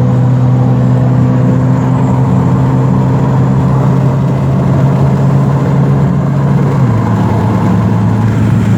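BMW E90's 2.5-litre straight-six running under way through a dual-valve exhaust, a steady drone whose pitch drops a step about seven seconds in.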